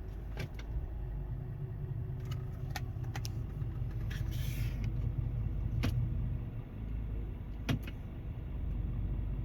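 Volkswagen Touareg's V10 TDI diesel idling in gear with a steady low rumble, carrying a very faint rubbing or grinding that the owner takes for a torque converter noise. A few sharp clicks and a brief hiss about four and a half seconds in.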